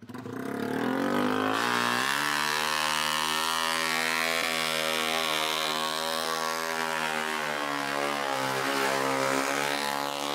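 Motorcycle engine revving up over the first two seconds, then held at high, fairly steady revs with slight rises and dips.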